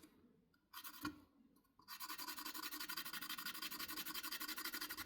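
Stainless-steel kettle interior being scrubbed by hand: one or two short scrapes, then about two seconds in a fast, even run of back-and-forth scouring strokes, a harsh rasping scratch.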